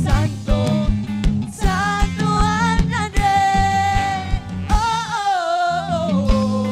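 Worship band playing a praise song, a singer holding long notes over guitar, bass and a steady drum beat. The bass and drums drop out for about a second near five seconds in, then come back.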